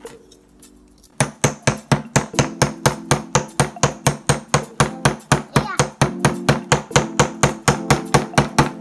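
A small wooden mallet rapidly tapping a chisel into the plaster block of a dinosaur excavation kit, about three to four even knocks a second, starting about a second in.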